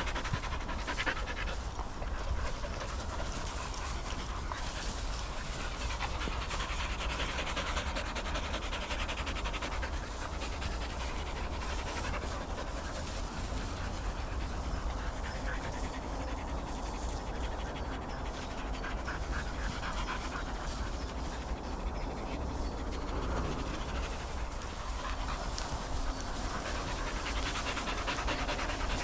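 Dogs panting close by, quick and continuous.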